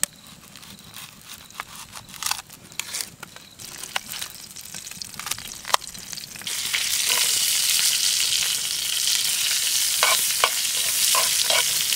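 A knife slices an onion on a plate, making scattered light clicks. About halfway through, onion slices and sausages hit hot oil in a frying pan and a loud, steady sizzle starts.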